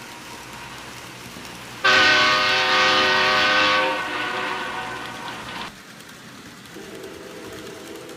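N-scale model diesel locomotive's DCC sound decoder sounding its horn: one long blast starting suddenly about two seconds in, fading after a couple of seconds and cutting off near six seconds, over a steady hum.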